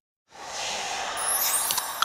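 Logo sound effect: after a moment of silence, a whoosh starts suddenly about a third of a second in. High, glittering chime-like tones join it about halfway, with a few sharp clicks near the end.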